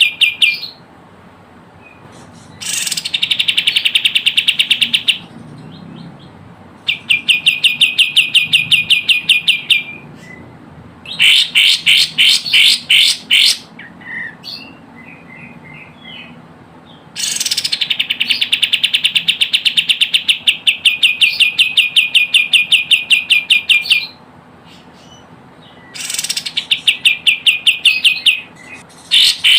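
Kapas tembak bulbul calling in rapid chattering trills of sharp, evenly repeated notes, about eight to ten a second, in bouts of a few seconds broken by short pauses.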